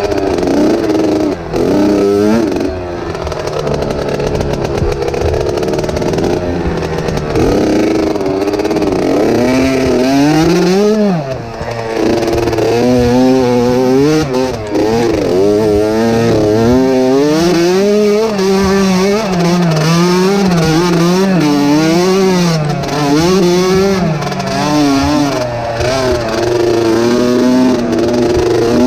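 Dirt bike engine revving hard as it is ridden along a trail, its pitch climbing and dropping again and again with the throttle.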